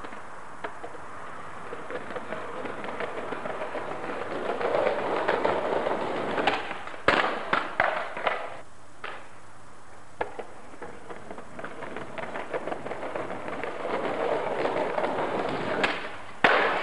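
Skateboard wheels rolling over paving slabs, growing louder as the skater comes closer. About seven seconds in the board clatters in a quick series of sharp knocks. After a second roll, a hard slap comes near the end as the board comes down off a set of steps.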